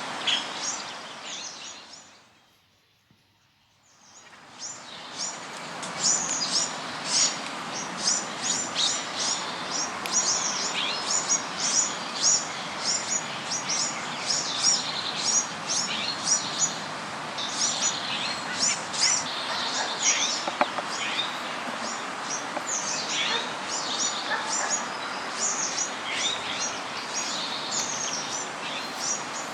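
Many small birds chirping rapidly and continuously over a steady background hiss. The sound fades down to near silence about two seconds in and fades back up about a second later.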